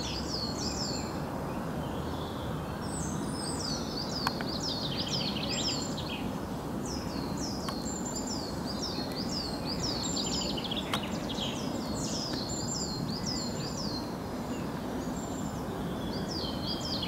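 A songbird singing phrases of quick, high, downward-sliding notes repeated many times, with short pauses between phrases, over steady low background noise. A couple of sharp clicks stand out.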